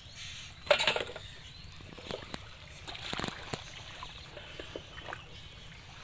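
Shallow pond water splashing and sloshing, with a sharp, loud splash about a second in and another burst of splashing about three seconds in.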